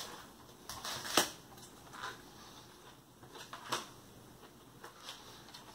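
Crisp crunches from biting into and chewing a crispy-shelled Cheeseburger Melt. There are a few sharp crackles: the loudest about a second in, another near four seconds.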